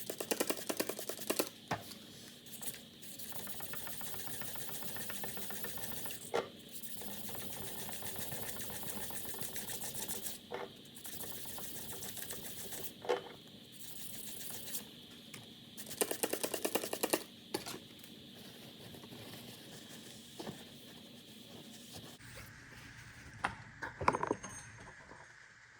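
Fine sanding of the JB Weld repair on an outboard propeller shaft's seal surface with 1200-grit paper: a fast, steady rasping with louder stretches. A steady high whine runs underneath and stops about 22 seconds in, leaving a few light knocks.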